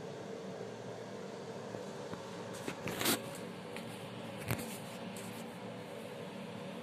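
A steady low hum, with a brief burst of rustling about three seconds in and a single tap a second and a half later, from a hand stroking a cat's fur and handling the phone.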